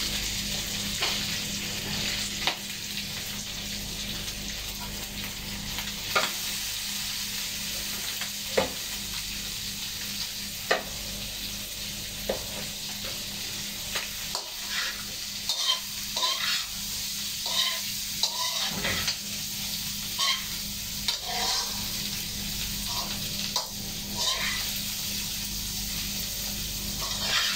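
Tokwa (firm tofu) sizzling steadily as it fries in a wok, stirred with a metal spatula. The spatula clinks and scrapes against the pan now and then, more often in the second half.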